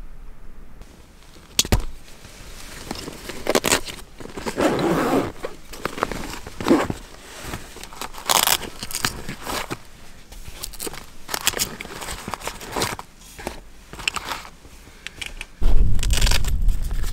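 Nylon pouches and their contents being handled: rustling, scraping and small clicks come and go. Near the end a low rumble comes in as the zipper of a fabric chair carry bag is pulled open.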